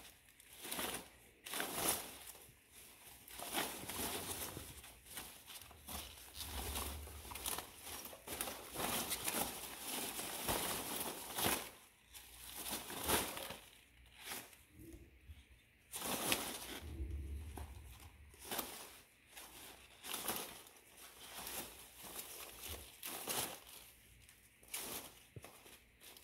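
Foam packing peanuts and plastic play balls rustling and clicking as a ferret digs and scrambles through them: irregular crackling with many small clicks, pausing briefly now and then.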